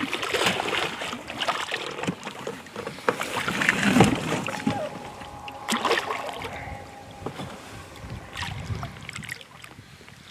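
Water splashing and knocking in irregular bursts around an inflatable boat as a hooked wels catfish thrashes alongside, being brought in to be landed by hand. The loudest splashes come about four and six seconds in, and it quietens near the end.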